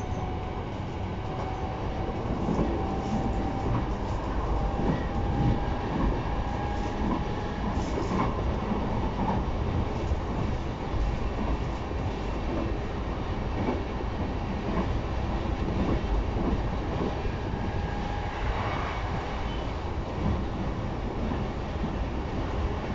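Running noise heard inside a JR East E233-0 series electric commuter train at speed: a steady rumble of wheels on the rails with occasional light clicks. A faint whine rises slowly in pitch through the first half.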